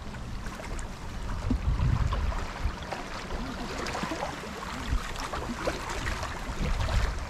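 Strong wind buffeting the microphone in a low, uneven rumble, with water lapping underneath.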